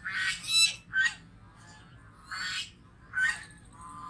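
A goose honking: a series of about six short, harsh calls, some in quick pairs, with brief pauses between.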